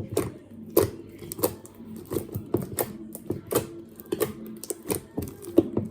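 Slime being squeezed and pressed by hand, giving a run of loud, sharp pops and clicks at an uneven pace of about one or two a second as trapped air bursts.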